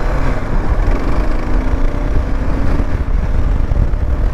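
Kawasaki KLR650 single-cylinder engine running steadily under way, its note drifting a little, over a low rumble.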